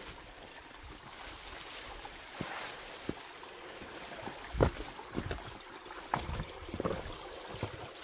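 Small shallow creek trickling over stones, with scattered knocks and rustles from walking through ferns and undergrowth; the loudest knock comes about halfway through.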